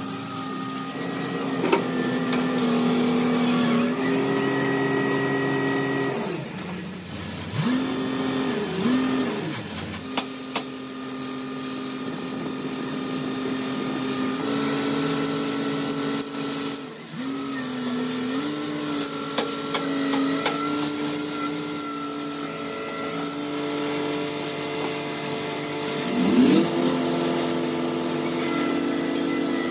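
Oxy-fuel cutting torch hissing as it cuts the steel of a crane boom, with scattered crackles. Under it is a steady engine drone whose pitch steps up and down every few seconds.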